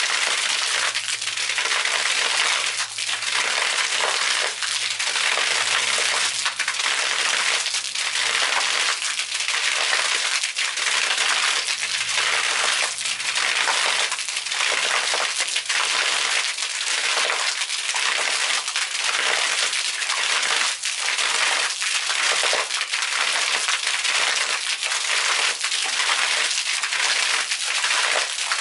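Water from submersible arching fountain jets splashing down steadily onto concrete paving and into a pool, a dense patter of falling drops. A faint low hum runs under it for about the first half.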